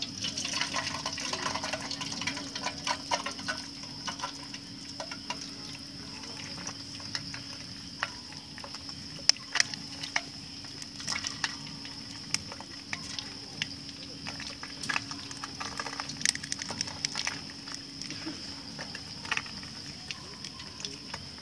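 Eggs frying in a metal mess tin over a small wood gas stove, with irregular crackles and pops of sizzling fat and an occasional tap as an egg is cracked. A steady high-pitched insect chirring runs underneath.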